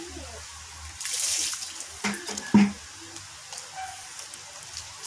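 Handling noise while bonsai wire and branches are worked by hand: a short rustle about a second in, then two sharp knocks about half a second apart, the second the louder.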